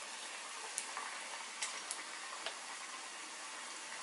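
Batter-coated cookie frying in hot oil in a saucepan: a steady sizzle with a few sharp pops from the oil.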